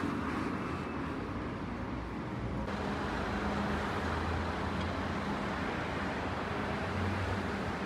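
City street traffic: a steady wash of road noise from cars, changing abruptly a little under three seconds in, after which a low, steady engine hum runs underneath.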